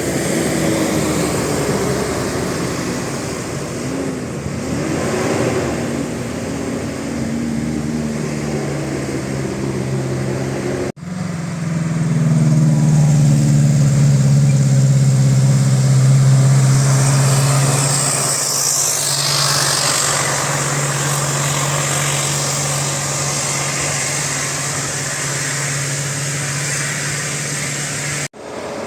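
Road vehicle engine running. At first its pitch rises and falls as it revs; after a sudden cut about 11 s in it becomes a loud, steady low drone, and the sound cuts again near the end.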